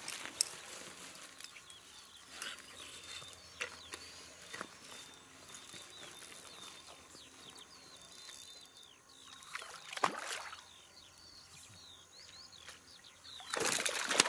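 Water splashing as a hooked pike is brought to a landing net: one splash about ten seconds in and a louder bout of splashing near the end. Small birds chirp in the background.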